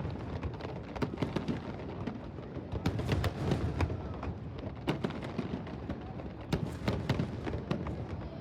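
Fireworks crackling and popping: a stream of irregular sharp cracks over a low rumble.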